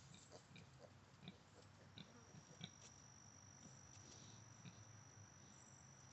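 Near silence: faint rustling of straw and soft sounds from piglets rooting in their bedding, with a thin steady high-pitched whine from about two seconds in.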